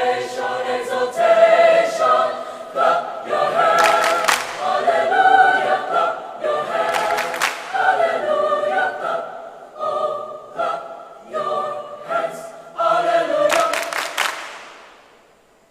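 Choir singing in several parts, punctuated by a few clusters of sharp, bright hits about four, seven and fourteen seconds in. The final chord fades away just before the end.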